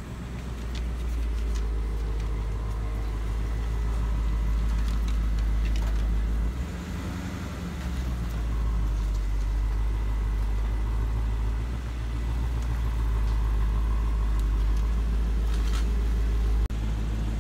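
2015 Ford Mustang GT's 5.0-litre V8 idling steadily.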